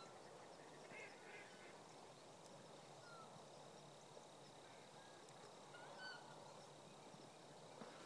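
Birds coming in to roost, calling faintly and now and then: a handful of short, separate calls over a steady low hiss.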